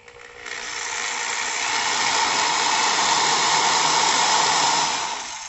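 Electric drill running with its bit in a small workpiece. It spins up over the first couple of seconds, runs steadily, and dies away at the end.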